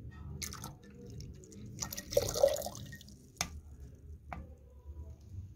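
Kombucha being poured into a glass jar of tea, with liquid splashing, loudest about two seconds in. Two sharp clicks follow in the second half.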